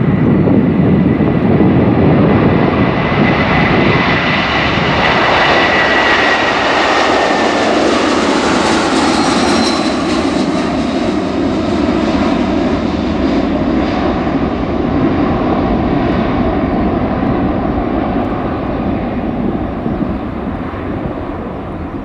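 Boeing 747-400F freighter's four jet engines at takeoff power as it lifts off and climbs past: a loud, steady rush with a high whine that slides slowly down in pitch as the aircraft goes by, the whole sound easing off near the end as it climbs away.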